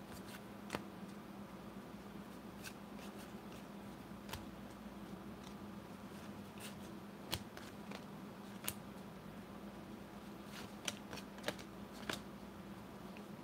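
1990 Upper Deck baseball cards being handled and flipped through one by one, giving scattered faint light clicks and taps as cards are moved and set down, over a low steady hum.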